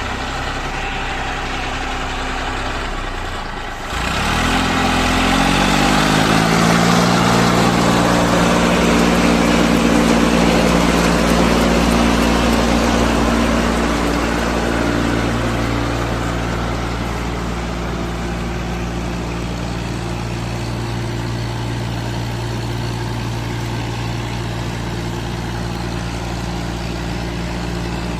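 Diesel engine of heavy machinery idling, then about four seconds in revving up and running hard under load for around ten seconds before easing back to a steady lower run.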